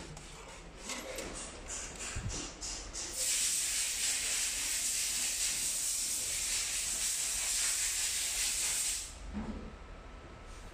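Light clicks and knocks of plastic and metal parts on a cash recycling module being handled, then a loud steady hiss for about six seconds that stops abruptly.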